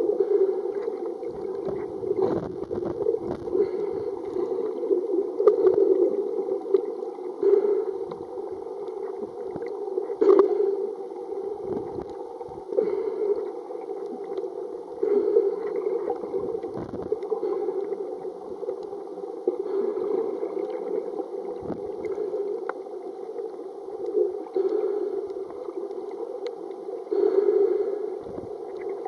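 Muffled underwater water noise picked up by a submerged camera in its waterproof housing, a rushing sound that swells and fades irregularly as the camera moves through the water. There are occasional low thumps and one sharp click about ten seconds in.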